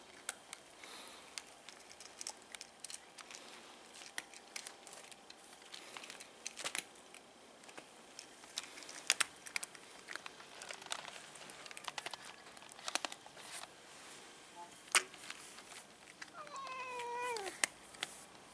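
Cats eating dry kibble: scattered crunches and clicks of kibble against the bowls. Near the end a cat gives one meow of about a second, wavering and falling in pitch.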